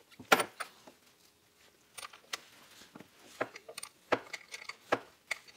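Irregular small metallic clicks and clinks as the terminal connections on a golf cart's lead-acid battery bank are worked loose by hand, the sharpest click about a third of a second in.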